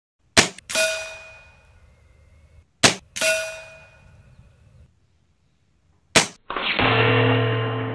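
Three shots from a .22 FX Monsoon regulated semi-automatic PCP air rifle, each a sharp crack followed a fraction of a second later by a metallic ring as the pellet strikes the metal trap behind the target. The last ring, about six seconds in, is louder and deeper and keeps ringing.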